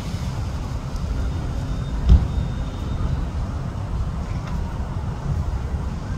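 Steady low rumble of road traffic mixed with wind buffeting the phone microphone, with a single thump about two seconds in.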